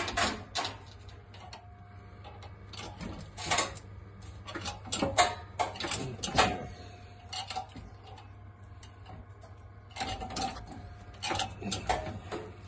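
Hydraulic shop press being worked to push a seized piston out of a Rootes 1600 cylinder block: a string of irregular metallic clicks and knocks as the load builds on the steel drift, over a steady low hum. The piston does not move.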